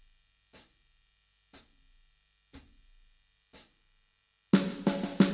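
A count-in of four sharp ticks about once a second, then the drum kit of a blues backing track comes in near the end with kick, snare and cymbal hits.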